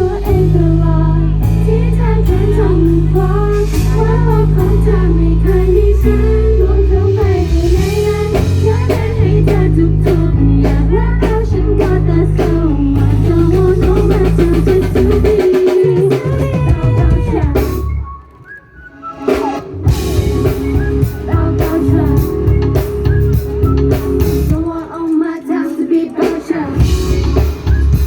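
Loud pop music through a PA system: a sung melody over heavy bass and a drum beat. The music drops out briefly about two thirds of the way through, then comes back.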